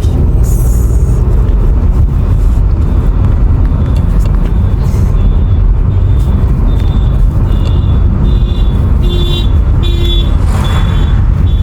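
Steady low rumble of a car driving. From about halfway through, a few short high-pitched tones sound over it.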